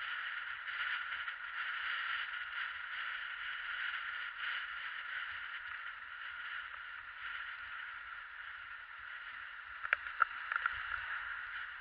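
Steady muffled hiss of wind and tyre noise from a recumbent trike rolling at about 35 km/h, with a few sharp clicks about ten seconds in.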